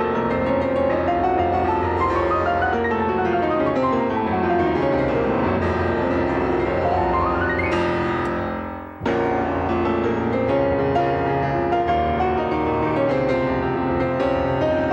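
Piano music with flowing runs of notes. A rising run about halfway through fades out briefly, and the music resumes abruptly.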